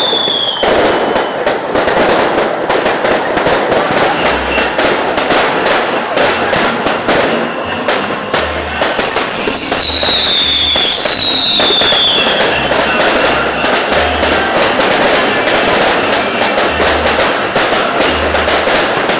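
Fireworks display going off: a dense run of crackling bangs and deep booms throughout. A couple of whistling fireworks glide down in pitch about halfway through.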